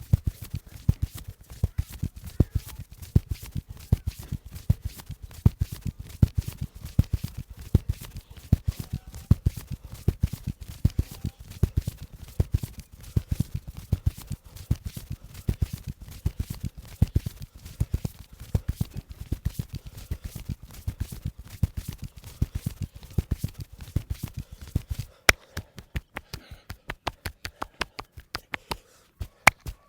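Percussive massage strokes: the masseur's hands rapidly slapping and patting the body, several dull thudding hits a second in a steady rhythm. About 25 seconds in they change to sparser, sharper and lighter claps.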